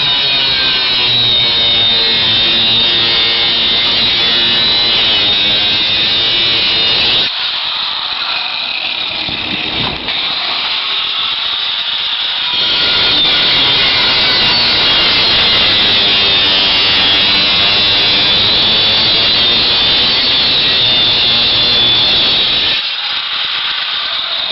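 Angle grinder with a thin zip cut-off disc for aluminum cutting into aluminum cable tray: a loud, continuous high screech over the motor's whine. It eases off about seven seconds in, bites again about five seconds later, and eases off near the end.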